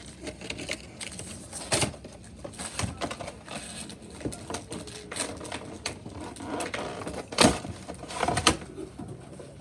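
Handling noise as a Pokémon card box and its packaging are opened: scattered clicks and light taps, with a few sharper knocks, the loudest about seven and a half seconds in.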